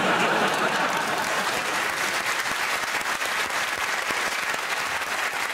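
Studio audience applauding, loudest at the start and slowly easing off.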